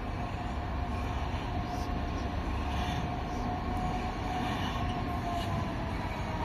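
Colas Rail Class 66 diesel locomotive approaching slowly at the head of a railhead treatment train, its two-stroke V12 engine giving a steady low rumble, with a thin whine that drifts slowly down in pitch.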